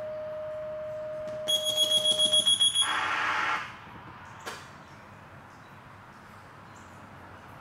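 Fire station dispatch alerting tones: a steady tone held for over two seconds, the second of a two-tone page, overlapped by rapid high-pitched electronic beeping at about seven beeps a second. A short harsh burst follows about three seconds in, then a single click.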